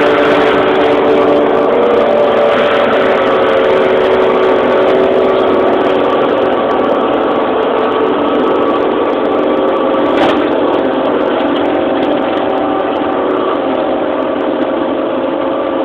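Tractor engine running steadily while powering a McConnel reach-arm flail mower whose head is cutting along a hedge. There is one short crack about ten seconds in.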